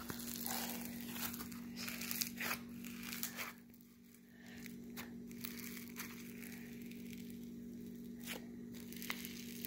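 Foam slime being pressed and kneaded by hand, its foam beads crackling in quick, irregular little clicks. The crackling is dense for the first three seconds or so, drops away briefly around four seconds, then comes back sparser, over a steady low hum.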